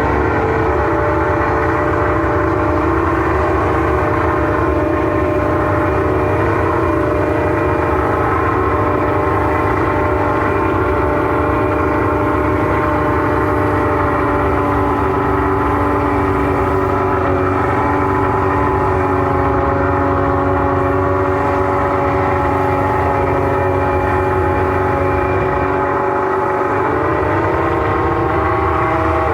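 McLaren MP4/6 Formula 1 car's Honda 3.5-litre V12 idling steadily, an even, loud drone at constant pitch.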